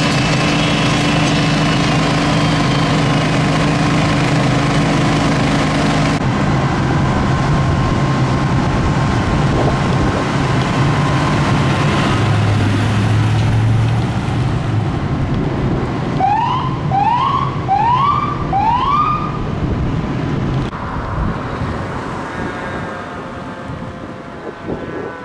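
Engines running steadily, then an emergency-vehicle siren giving four quick rising whoops about a second apart. Near the end a responding fire engine's siren sounds as it approaches.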